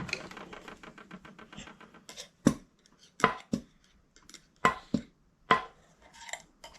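Metal VW ratio rocker arm parts clicking and knocking against one another and the workbench as they are oiled and fitted on the rocker shaft: a quick run of fine ticks at first, then sharp separate clicks about every half second.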